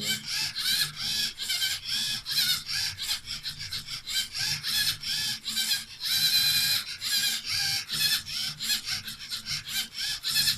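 LEGO EV3 Technic CNC plotter drawing: a pen scratching across paper in short rapid strokes, several a second, with one longer stroke about six seconds in, over the steady hum of the EV3 motors driving the axes. The pen is pressing only lightly on the paper.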